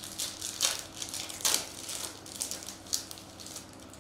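Foil wrapper of a 2022 Bowman Baseball hobby pack crinkling as it is torn open by hand, in several sharp crackles.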